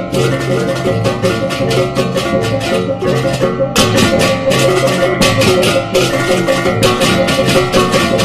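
Background music: a fast, steady percussion beat over ringing pitched notes. The high percussion drops out for a moment about three seconds in.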